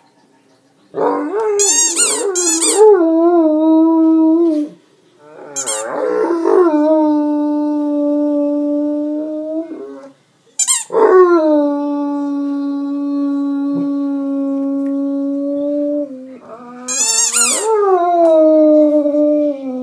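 Great Dane howling: four long, steady howls with short breaks between them. Each howl starts with a few high squeaks from a squeaky dog toy.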